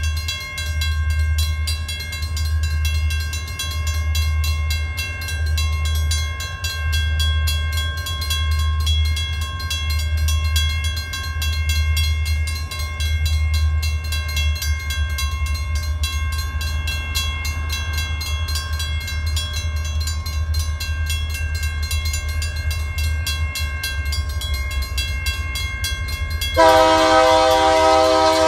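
Grade-crossing warning bell ringing steadily with rapid dings as the train approaches. About two seconds before the end the lead SD40-2 locomotive's multi-note air horn blasts, the loudest sound.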